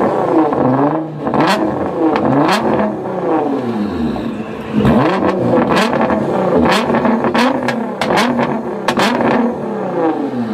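Nissan GT-R's twin-turbo V6 being revved hard again and again, each rev rising and dropping back within about a second. Sharp pops and cracks from the exhaust come between the revs.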